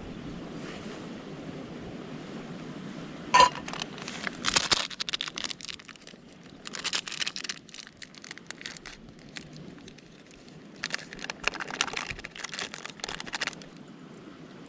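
A sharp, briefly ringing clink about three seconds in, then two long bouts of crinkling, crackling rustle, the sound of material or gear being handled close by.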